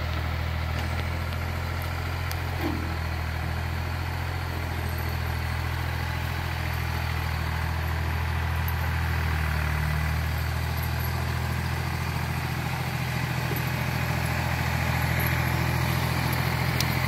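Old Ford farm tractor's engine running steadily as the tractor drives around, a low continuous drone that gets a little louder near the end.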